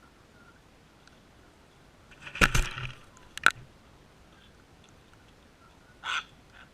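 A cockatoo's beak knocking and crunching close to the camera at a seed feeder: a loud cluster of knocks about two and a half seconds in, a single sharp click a second later, and another short burst near the end.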